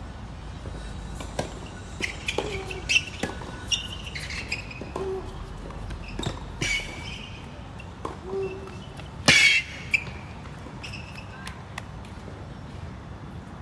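Tennis rally on a hard court: irregular sharp knocks of racket strikes and ball bounces, mixed with short high squeaks, the loudest about nine seconds in.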